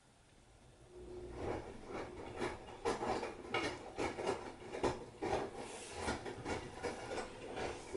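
Repeated rubbing, scraping strokes, about two a second, starting about a second in.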